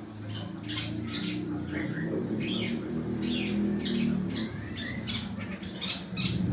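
A long-tailed shrike (cendet) practising its song: a quick, uneven series of short high chirps and harsh squawks, some sliding in pitch. A steady low hum runs underneath.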